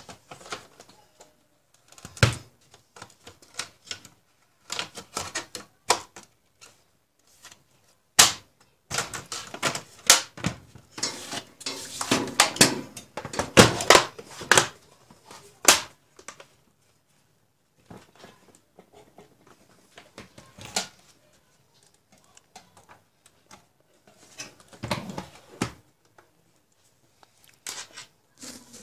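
Plastic front bezel of an HP 1740 LCD monitor being fitted and pressed onto the panel frame: scattered sharp clicks and knocks, with a dense run of rapid clicking from about nine to sixteen seconds in as the bezel is pressed into place.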